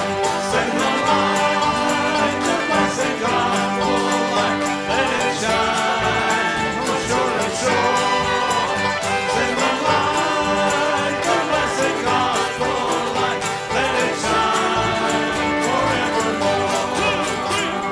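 Live bluegrass gospel band playing, with fiddle, banjo, acoustic guitars and electric bass, and men singing.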